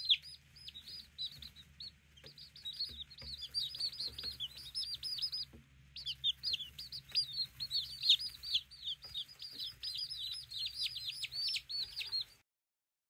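A brood of newly hatched Salmon Faverolle chicks peeping continuously, many short falling peeps overlapping. The sound cuts off suddenly near the end.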